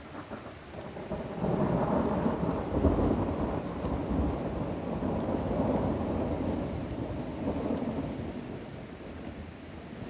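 Thunder rolling in about a second in, a long low rumble that is loudest early on and fades over several seconds, over steady rain.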